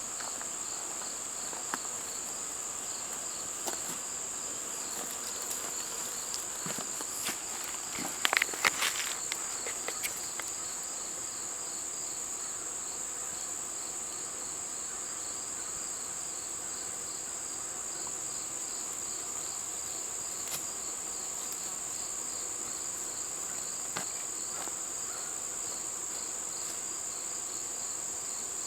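Steady, high-pitched insect chorus: a continuous trill with a second, evenly pulsing trill beneath it. A brief cluster of clicks and knocks comes about a third of the way through.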